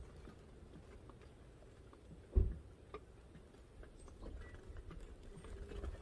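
Gusty wind buffeting the microphone: a low rumble that dies down after the start and builds again near the end. One thump comes about two and a half seconds in, with faint scattered ticks and taps.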